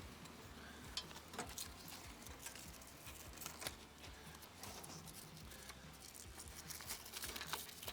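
Quiet rustling and scattered small clicks as a soft ride strap is threaded through the rack and pulled snug around a bike wheel.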